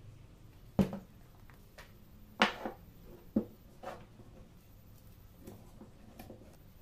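Hardwood strips knocking against each other and the workbench as they are handled during a glue-up: three sharp wooden knocks in the first half, then softer small clicks and taps.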